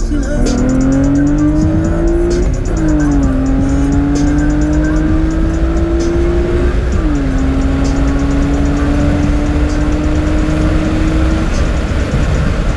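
Car engine accelerating through the gears: the pitch climbs, drops at an upshift about two and a half seconds in, climbs again, drops at a second shift about seven seconds in, then holds nearly steady before fading near the end. Music plays faintly underneath.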